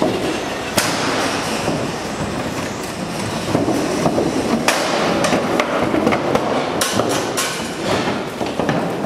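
Cattle hooves clattering and knocking on the slatted metal ramp and floor of a livestock lorry as the animals are let out, with several sharp knocks in the middle.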